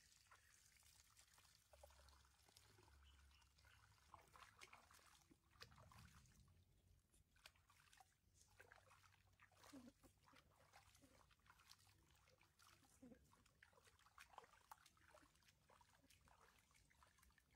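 Near silence with faint water trickling and small splashes, broken by scattered light clicks.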